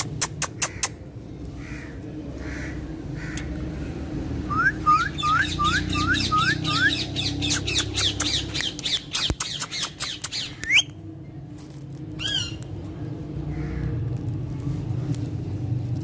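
Indian ringneck parakeet calling: a few sharp clicks at the start, then a run of short rising calls, about three a second, running into a quick string of harsh squawks, with a single squawk a little later. A steady low rumble sits underneath.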